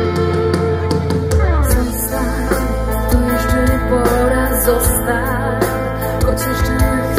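Live band music, loud and continuous: electric guitars and drums playing, with a steady bass underneath.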